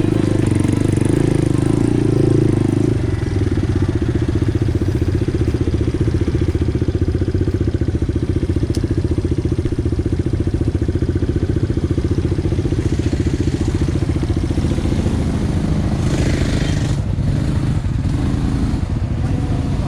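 ATV engine running on the trail. About three seconds in, its note drops from a steady high drone to a slower, pulsing beat of firing strokes.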